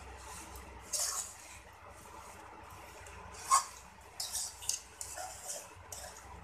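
A metal spoon scraping and stirring a crumbly mixture of roasted gram flour and ghee in a metal kadhai, in irregular strokes. The loudest sound is a sharp clink of the spoon on the pan about three and a half seconds in.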